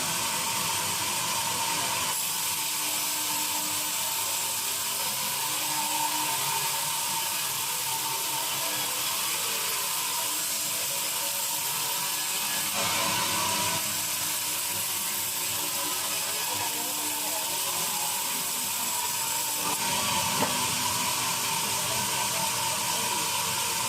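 Band sawmill running steadily, its blade sawing through a teak log with a constant hissing whine and a steady tone.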